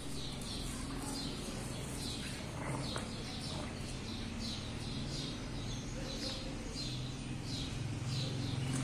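Short high chirps repeating every half second or so, as of small birds calling, over a low steady hum.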